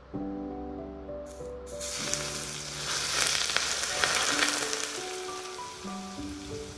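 Smoking-hot oil poured over chili flakes, sesame seeds and green onion in a stainless steel bowl, sizzling and bubbling: it starts about a second and a half in, is loudest in the middle, then dies down.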